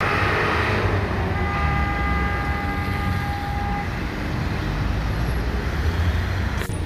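Road traffic: a steady low rumble of passing cars, with a steady high tone that starts about a second in and stops after a couple of seconds.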